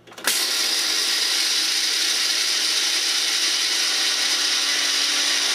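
Small personal blender motor grinding whole coffee beans. It spins up quickly about a quarter second in, then runs at a steady high speed.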